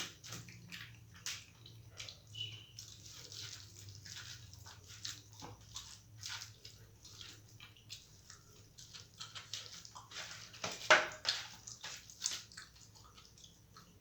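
Wet chewing and mouth smacking while eating rice mixed with masoor dal and mashed potato, in many short irregular clicks, with the loudest smack a little before the end.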